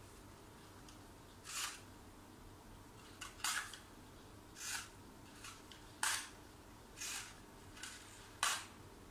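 A paper model pistol being handled, a mix of an HK USP and a 1911. Its paper parts make about eight short rustling and clicking noises, with the sharpest clicks about six and eight and a half seconds in.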